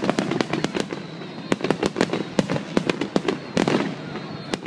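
Finale barrage of aerial firework shells bursting: many sharp bangs in quick succession, several a second.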